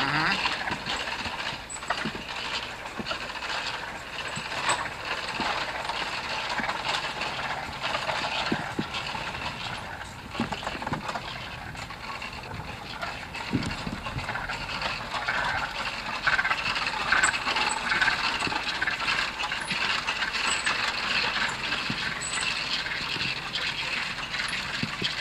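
Small homemade electric trolley car rattling and clattering along its 18-inch gauge track, with many small clicks from its wheels and running gear.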